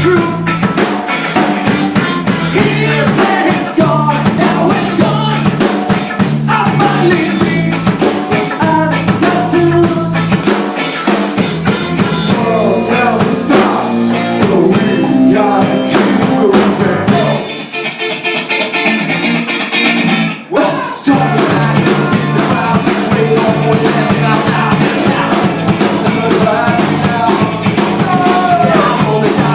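A band playing rock music with drum kit, guitar and singing. A little past halfway the drums and bass drop out for about three seconds, leaving a thin, narrow sound, and then the full band comes back in.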